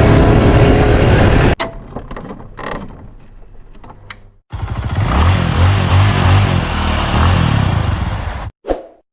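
Music that cuts off abruptly about a second and a half in, then an ATV engine revving loudly for about four seconds, its pitch rising and falling, stopping suddenly near the end.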